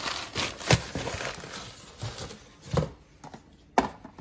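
Crumpled packing paper rustling and a cardboard box being handled, with three sharp knocks as things are set down or bumped.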